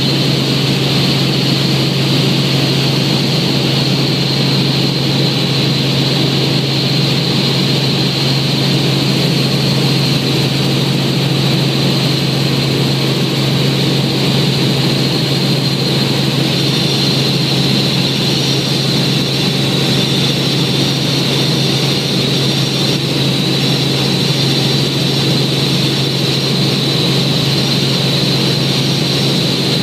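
Helicopter in cruising flight heard from inside the cabin: a loud, steady drone of rotor and engine with a steady high whine above it.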